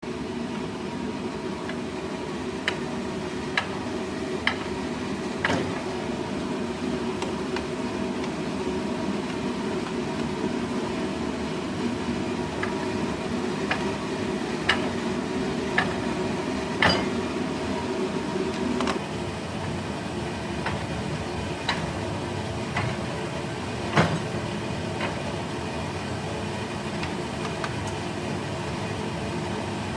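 Fly press punching holes in iron: sharp metallic clunks at irregular intervals, a second or several apart, over a steady mechanical hum.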